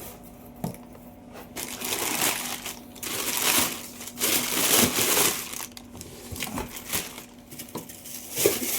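Plastic packaging crinkling and rustling as a product is unboxed, loudest in the middle, with a few short knocks and clicks.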